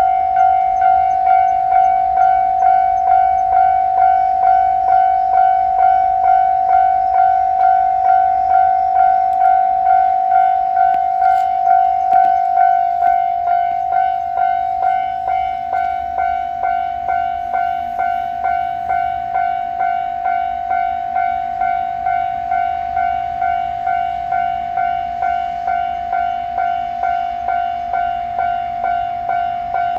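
Japanese railway level-crossing warning alarm ringing its electronic "kan-kan" bell tone, a clear pitched ding repeating steadily about twice a second. It grows slightly quieter about halfway through.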